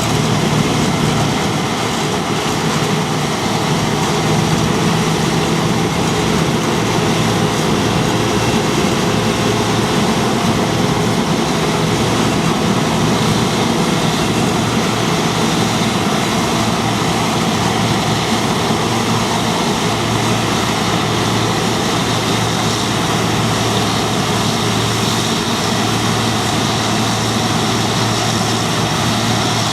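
John Deere 2264 combine harvester running steadily while cutting winter barley: a continuous loud drone of its diesel engine and working machinery.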